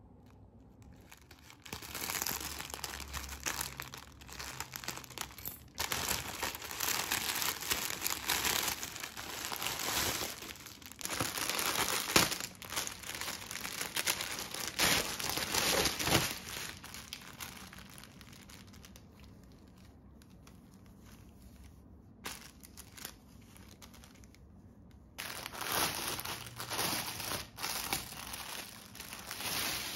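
Clear plastic packaging bag crinkling as it is handled and smoothed flat. The crinkling comes in stretches, loud for the first half, quieter for several seconds, then again near the end.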